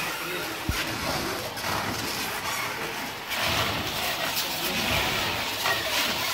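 Luggage-wrapping machine running: its motorised turntable spins a suitcase while plastic stretch film pulls off the roll around it, a steady mechanical whir with a film hiss that grows louder a little over three seconds in. A brief low knock comes under a second in.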